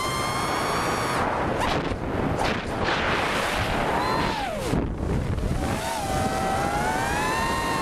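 Brushless motors and props of a 5-inch FPV quadcopter (Cobra 2204 2300KV motors, Dal 5040 props) whining, the pitch rising and falling with the throttle and dropping sharply about five seconds in, under heavy wind rush on the onboard camera's microphone.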